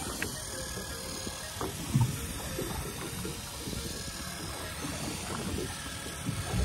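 Hand-cranked deep-sea fishing reel winding in line, a faint clicking mechanical ratchet over steady water and boat noise, with one knock about two seconds in.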